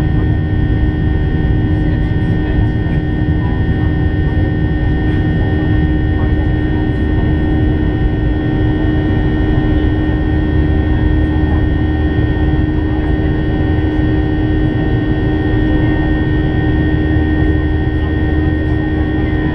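Boeing 737-800 jet engines droning steadily, heard inside the passenger cabin: a constant low rumble and rush with several steady tones above it.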